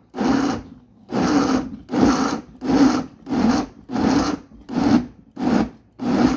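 Vitamix blender motor pulsed in short bursts, about nine half-second whirs one after another, chopping a jar of whole cherry tomatoes and vegetables into purée.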